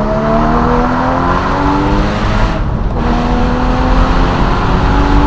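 Porsche Boxster Spyder's flat-six engine accelerating hard, its pitch climbing through a gear, dropping briefly at a gear change about two and a half seconds in, then climbing again. Wind and road noise from the open top run underneath.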